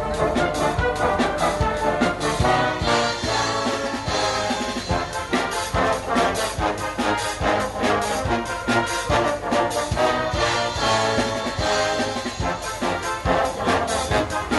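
Band music with brass-like tones and a steady beat.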